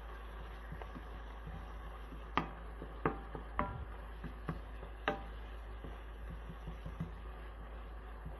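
Wooden spoon stirring chopped onion, green pepper and garlic in a nonstick frying pan, knocking against the pan now and then: a scatter of sharp clicks, the loudest about two and a half, three and five seconds in, over a low steady hum.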